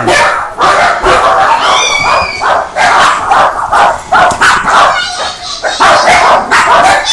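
Small dogs barking and yipping rapidly and repeatedly, about two to three barks a second, with a brief high squeal about two seconds in.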